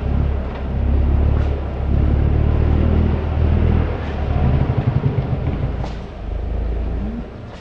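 Land Rover Discovery TD5's five-cylinder turbodiesel engine working hard under load in deep mud, its revs rising and falling in waves, then easing off near the end.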